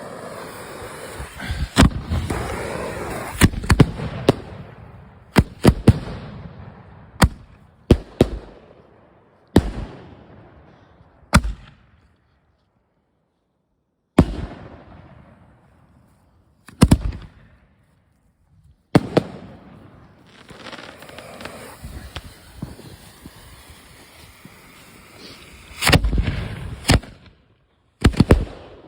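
Consumer fireworks going off: a string of sharp bangs, some in quick pairs, with longer stretches of hissing and crackling between them.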